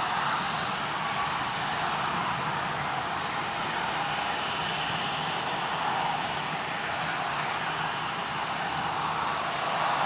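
Airliner engines running with a steady noise that holds at an even level.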